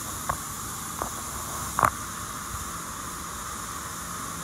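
Pressure-washer jets spraying water onto a car's bodywork: a steady hiss, broken by a few short clicks in the first two seconds.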